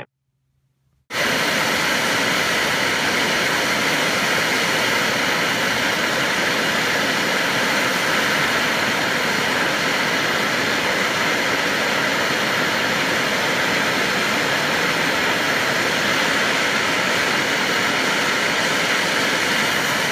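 Bernzomatic hand torch burning with a steady hiss, coming on abruptly about a second in, as its flame heats a copper pendant from below to fuse the first coat of enamel.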